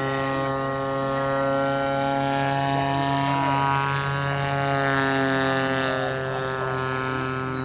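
Electric motor and propeller of an FMS 1.5 m Cessna 182 RC model in flight, a steady buzzing drone that holds one pitch with a slight waver midway.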